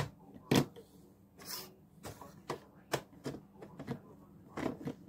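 Plastic Lego bricks clicking and clattering as pieces are picked up and set down on a hard tabletop: a string of separate sharp clicks, the loudest right at the start, with a brief rustle about one and a half seconds in.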